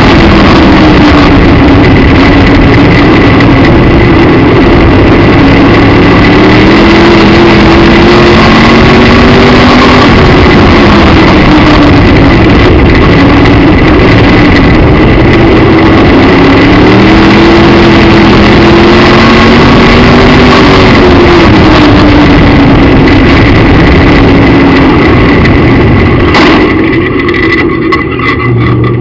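Midwest Modified dirt track race car's V8 heard from inside the car, run hard and very loud, its pitch rising and falling in a cycle about every ten seconds as it accelerates down the straights and backs off into the turns. Near the end the engine note drops and breaks up into sharp pops.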